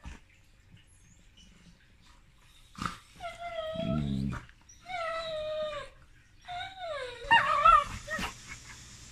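A Chesapeake Bay Retriever and a chocolate Labrador play-fighting ('bitey face'), making drawn-out whining calls. After about three seconds of quiet, three long whines come in turn: the first with a low growl under it, the last sliding down in pitch and loudest.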